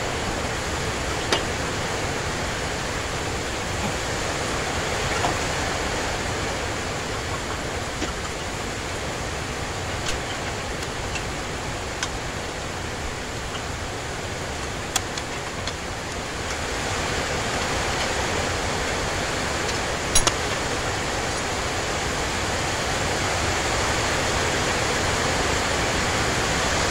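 Steady even hiss, with a few sharp metal clicks and taps from the parts of a Suzuki 15 hp outboard's lower-unit gearbox being handled and fitted together; the loudest is a double click about twenty seconds in.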